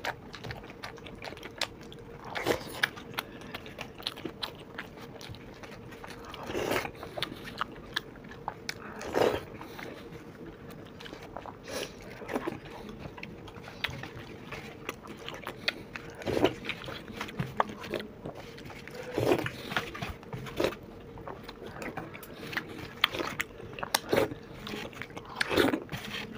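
Two people eating soft, yoghurt-soaked dahi bhalla with steel spoons: spoons clicking and scraping on the plates, with chewing and wet mouth sounds every few seconds. A faint steady hum runs underneath.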